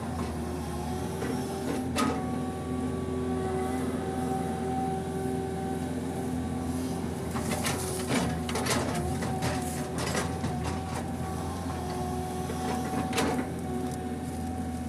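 PC200 hydraulic excavator running steadily, heard from inside its cab, with a few sharp knocks and clunks as the bucket digs the ditch.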